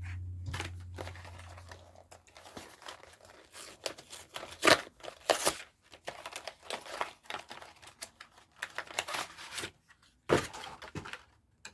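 Pokémon card packaging, foil and plastic wrapper, being torn open and crinkled by hand: a run of irregular ripping and crackling, loudest about halfway through, with more crinkling near the end.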